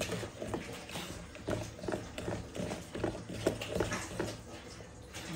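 Thick chocolate cake batter being mixed by hand in a plastic bucket: irregular knocks and scrapes of the utensil against the plastic sides, several a second, with soft squelching of the batter.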